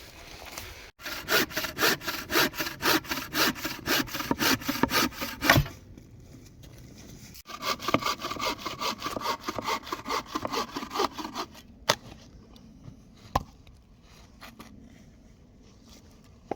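Hand saw cutting through wood in quick back-and-forth strokes, about four a second, in two bouts with a short pause between. A couple of sharp knocks follow near the end.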